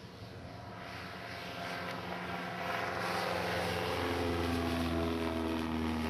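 Cessna 152's four-cylinder piston engine and propeller running with a steady drone and broad rushing noise, growing steadily louder over the first few seconds and then holding.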